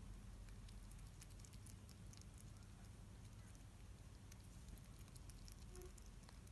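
Hedgehog chomping dry kibble: faint, quick, irregular crunching clicks over a low steady hum.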